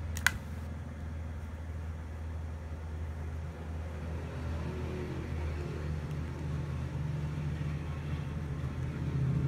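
A single sharp click of hard plastic about a third of a second in, as a small toy hockey stick is pushed into a plastic figure's hand, over a steady low hum.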